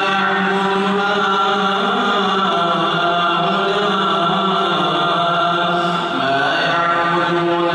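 An imam's melodic Quran recitation (tilawa) during congregational prayer, a single man's voice chanting slowly and holding long notes, with a short break between phrases about six seconds in.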